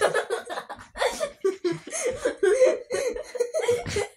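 A young boy laughing, a long run of short peals.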